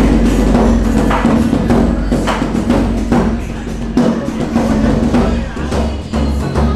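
Large taiko drum struck with wooden bachi sticks: single heavy beats, spaced unevenly about a second apart.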